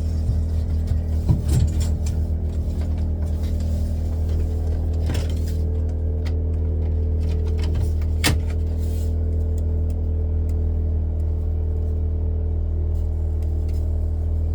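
Steady hum of an electric machine motor running, with a few sharp clicks or knocks: about a second and a half in, around five seconds and around eight seconds.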